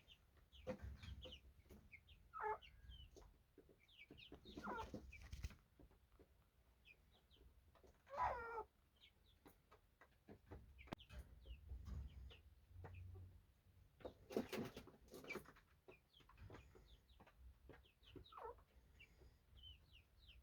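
Budgerigars chirping and chattering softly, with short calls scattered irregularly throughout, and a few brief bursts of rustling noise around the middle.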